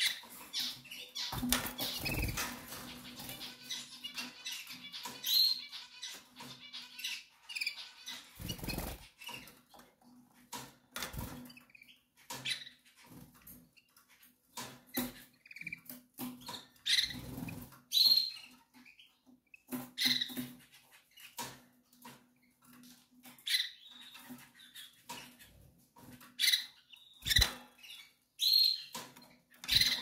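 Hen canary in breeding condition giving short, high chirping calls every second or two, the call a hen in heat uses to summon the male to mate. A burst of wing fluttering and rustling about two seconds in, with scattered small clicks and rustles of nesting material over a faint steady hum.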